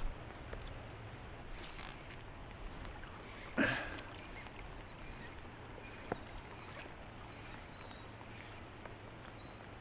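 Steady rain falling on the surface of a trout stream, with one louder brief swish about three and a half seconds in and a sharp tick near six seconds.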